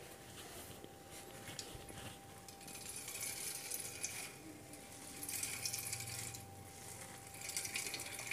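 Water wrung by hand out of salted, crushed vegetables in a cotton cloth, trickling and splashing into a steel bowl in three short spells. Faint.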